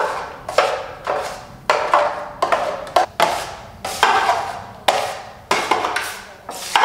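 Repeated sharp knocks, one or two a second at an uneven pace, each with a brief ringing tail: a steel drywall knife rapping against a cut-open plastic jug over a bucket of setting-type joint compound.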